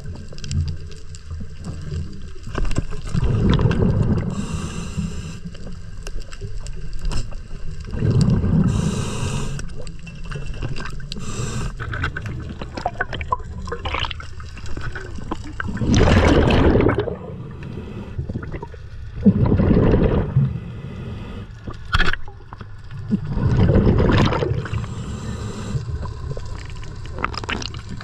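Scuba diver breathing through a regulator underwater: a short hiss on each inhale and a gurgling rush of exhaled bubbles, repeating every few seconds. A few sharp clicks come in between.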